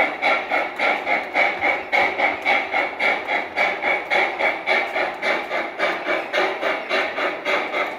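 Gauge 1 model steam locomotive chuffing in an even rhythm, about four chuffs a second, while running with a train of silo wagons.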